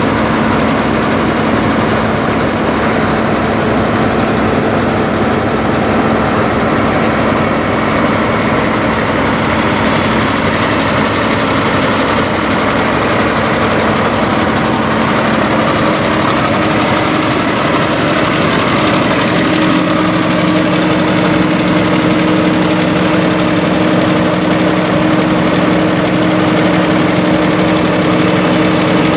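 Semi-truck diesel engine idling steadily, a dense continuous rumble with a steady hum that shifts to a higher tone about two-thirds of the way through.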